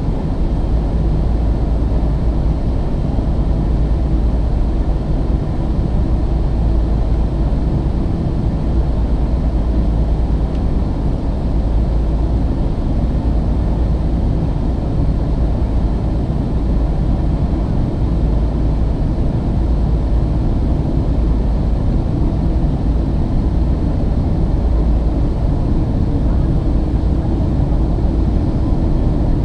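Airplane in flight: a steady low roar of engines and rushing air, heaviest in the deep bass and unchanging throughout.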